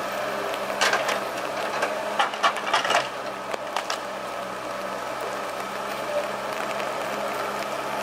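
Valmet 840.3 forwarder's diesel engine running steadily while its crane works. Between about one and three seconds in there is a cluster of sharp knocks and wooden clatters as the grapple takes hold of logs, with a few lighter knocks later.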